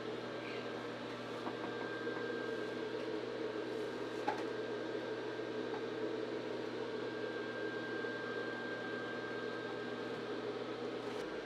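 Blower fan of an airblown Halloween inflatable running steadily: a constant whirring hum with a faint high whine that comes and goes.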